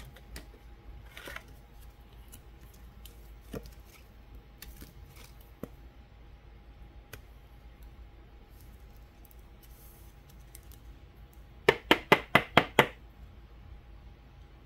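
Trading cards being handled, with faint rustles and small clicks, then a quick run of about seven sharp taps a little before the end as a card is settled in a clear plastic holder.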